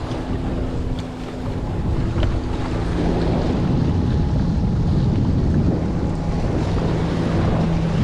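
Strong wind buffeting the microphone over waves washing against shoreline rocks, with the steady hum of a passing speedboat's engine, which settles to a lower note about three seconds in.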